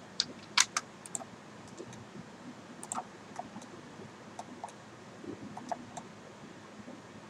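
Scattered clicks of a computer keyboard and mouse, a cluster of louder ones in the first second and sparser, fainter ones after, over faint room hiss.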